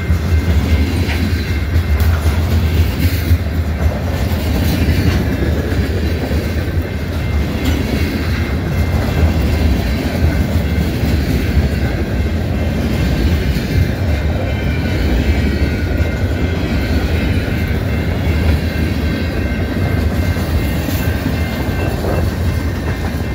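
Freight cars of a passing train rolling by close at hand: a loud, steady rumble and clatter of steel wheels on the rails.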